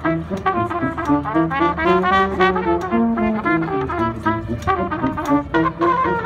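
Tuba and trumpet duo playing: the trumpet runs a fast melody of short notes over the tuba's bass line.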